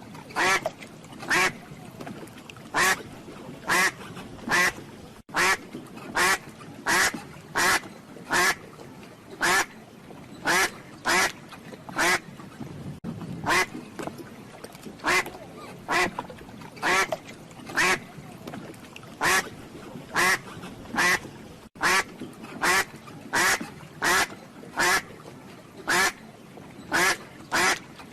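Duck quacking over and over in a long, even series of loud quacks, about one to two a second, some coming in quick pairs.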